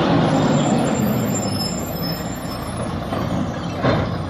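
Mack rear-loader garbage truck's diesel engine running as the truck passes and pulls up, growing slightly fainter. About four seconds in there is a short burst of noise.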